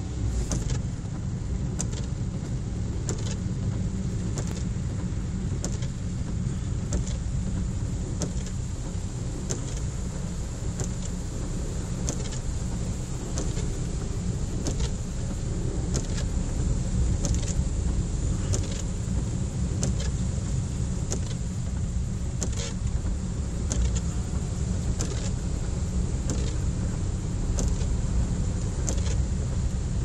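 Steady car-cabin rumble of engine and tyres while driving along a flooded road, with the windscreen wipers running and short clicks about once or twice a second.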